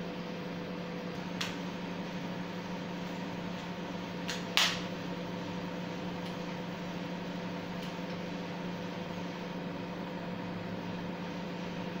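LG microwave oven running a heating cycle: a steady hum with low tones held throughout, showing it has power and is working again. A few sharp clicks break in, the loudest about four and a half seconds in.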